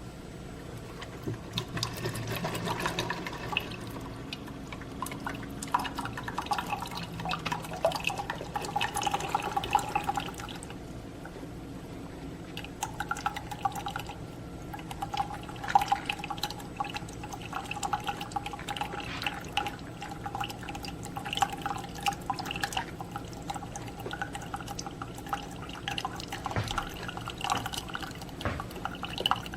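Keurig K-Supreme single-serve pod coffee maker brewing, with liquid pouring and splashing into a cup in irregular spatters. The flow eases briefly about ten seconds in, then picks up again.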